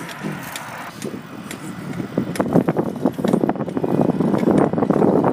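Bicycle being ridden on the road, rattling with irregular clicks over a rushing noise that grows louder about two seconds in.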